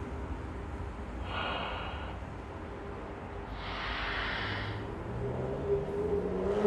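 Low steady rumble of a car on the road, with two breathy exhalations over it: one about a second in, and a longer one a little past the middle.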